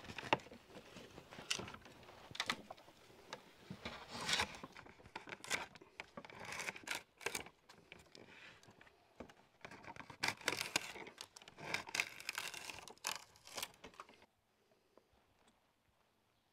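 Drawknife shaving a long wooden strip on a shaving horse: irregular scraping strokes of uneven length as shavings peel off, stopping about fourteen seconds in.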